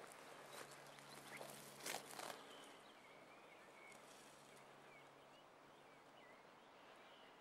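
A few footsteps rustling through forest undergrowth in the first couple of seconds, then faint short bird chirps over a quiet woodland background.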